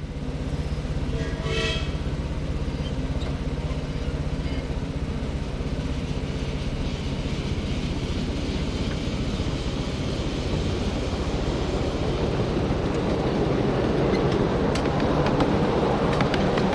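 Miniature live-steam train running along its track: a steady rumble of the cars rolling on the rails, with a short whistle about a second in. Sharp clicks of wheels on the rails come in during the last few seconds as the running grows a little louder.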